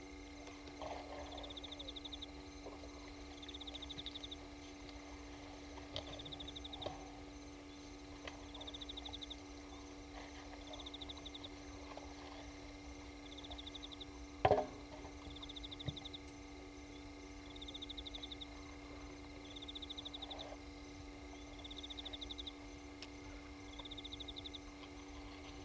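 A small night-calling animal's pulsed trill, each call under a second long, repeating about every two and a half seconds over a steady low hum. A single sharp knock sounds about halfway through.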